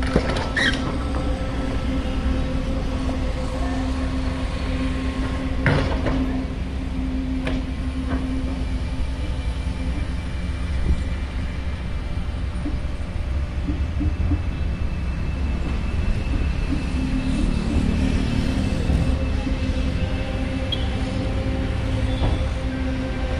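Kobelco hydraulic excavator's diesel engine running steadily at a construction site, a low rumble with a steady hum over it, and a few sharp knocks in the first several seconds.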